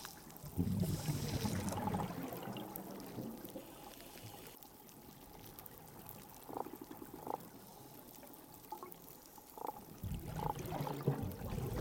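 Underwater reef ambience heard through a hydrophone: the faint, constant crackle of snapping pistol shrimp, with low gurgling sounds near the start and the end and a few short pulsed fish calls, of the kind croakers and sea robins make, around the middle.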